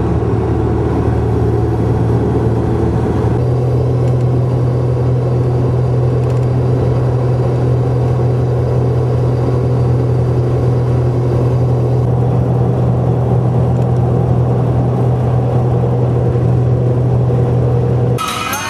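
Engine and road noise of a four-wheel drive cruising at highway speed, heard inside the cabin: a steady low drone whose pitch rises slightly about three seconds in.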